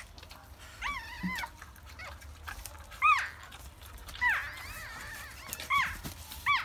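Newborn Shih Tzu puppies crying: a string of short, high-pitched squeals that rise and fall, coming about once a second.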